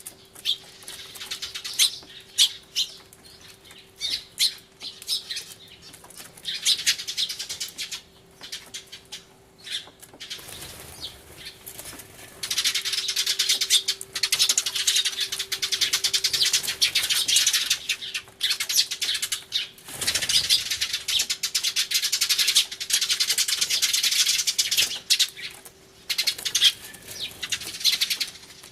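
A flock of Eurasian tree sparrows chirping loudly and frantically: scattered calls at first, turning into a dense, continuous chatter about halfway through.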